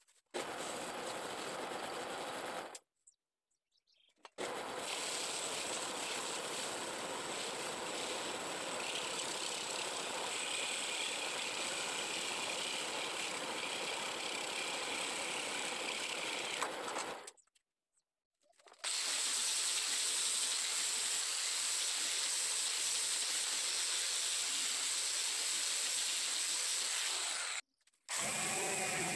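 Wood lathe running with a bowl spinning on it while a cloth or pad is held against the turning wood: a steady whirring with a thin high whine, in three stretches broken by short cuts. Near the end a different motor with a pitched hum starts.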